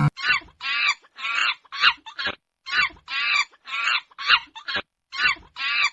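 Chicken clucking: a string of short, repeated calls, about two a second, with a brief pause about two and a half seconds in.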